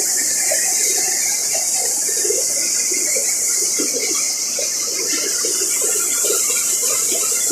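Water bubbling and gurgling with a steady hiss, heard through a camera in a river during a spearfishing dive.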